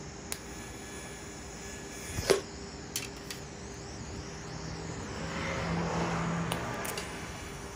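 TIG welder setup on a steel welding table: a steady electrical hum, one sharp metallic click about two seconds in and two lighter clicks just after, then a hiss that swells and fades near the end.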